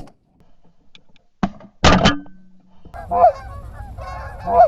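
Shotgun blasts, two in quick succession about two seconds in, followed from about three seconds by loud, repeated honking of geese.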